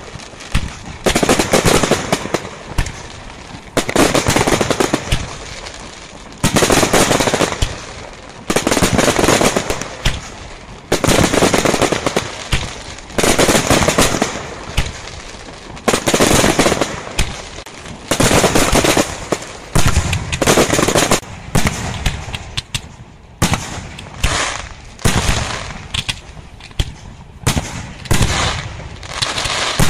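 Aerial fireworks display: shells bursting one after another, about one every one to two seconds, each burst a cluster of sharp reports with rapid crackling. The bursts come faster and shorter in the last few seconds.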